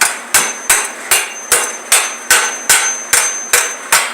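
Steady, regular hammer strikes on steel, about two and a half a second with a light metallic ring: a chipping hammer knocking the slag off a fresh stick-welded bead.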